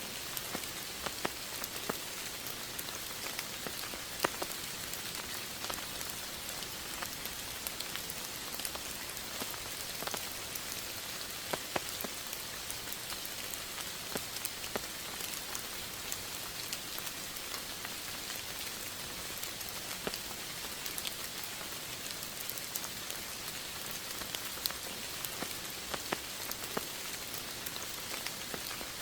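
Steady rain falling: an even hiss with many scattered, sharp raindrop taps.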